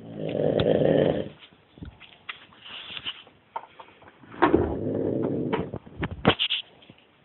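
A man snoring loudly: two long, rasping snores about four seconds apart, with a softer breath and a few small clicks between them.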